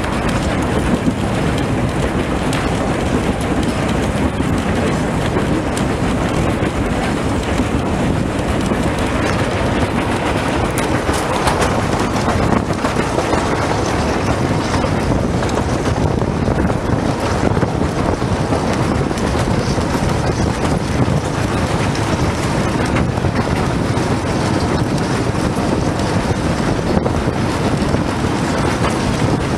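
Narrow-gauge passenger train running along the track, heard from the carriage: a steady rumble of wheels on rails with faint scattered clicks, and wind on the microphone.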